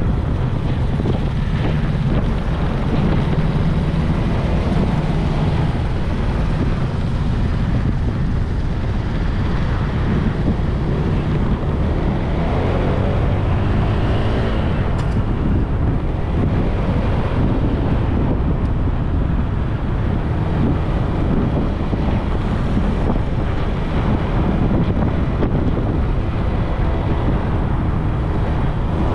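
Motorbike riding along a road: a steady rumble of wind on the microphone and road noise, with the engine and passing traffic beneath.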